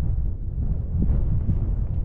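Wind buffeting the microphone: a loud low rumble that swells and dips unevenly.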